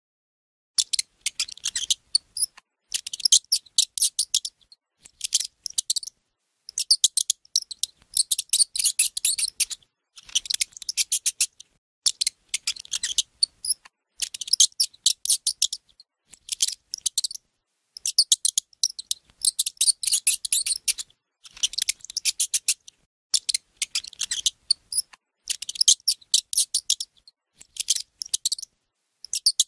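Rapid, high-pitched chirping in repeated bursts of a second or two, with short pauses between them.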